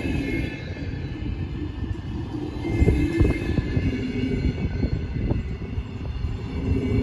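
Train passing through a station: a steady rumble of wheels on track, with a few sharp knocks, the loudest about three seconds in.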